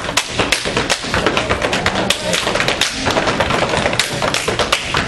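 Step team stepping in unison: a quick, uneven run of sharp foot stomps on the stage floor and hand strikes, several a second.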